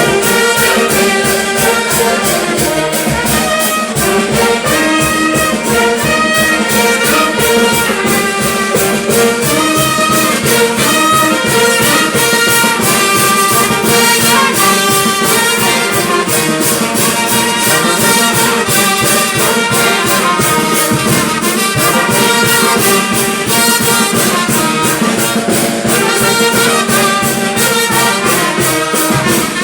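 A banda orquesta playing: trumpets and trombones carry the melody over a fast, steady percussion beat.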